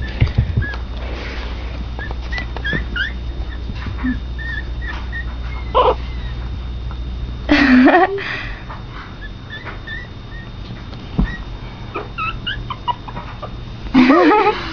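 Pomeranian puppies squeaking and whimpering in short, high, rising yips scattered throughout, with two louder, longer cries about six and eight seconds in that slide down in pitch.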